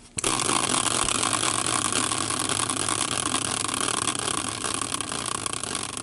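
A spinning prize wheel clicking rapidly and steadily as it turns, the clicks thinning out as it begins to slow near the end.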